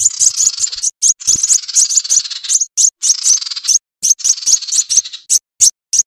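Bird-lure recording of sunbird calls: shrill, rapid chips and twitters in quick bursts, broken off by sudden short gaps.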